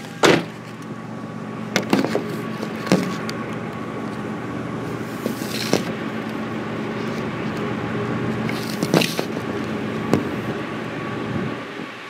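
Camera handling: a loud knock as the camera is set down on a car's roof, then several smaller knocks and scrapes from the hand steadying it. Under them runs a steady low engine hum that fades near the end.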